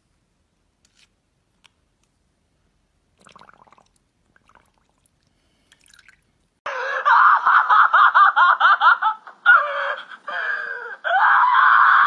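A dog howling: a wavering, pulsing yowl that starts loud a little past halfway, after near silence, and settles into one long held howl near the end.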